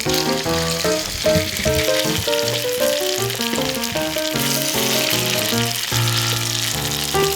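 Tofu balls frying in hot oil with a steady sizzle, under background music with a running melody.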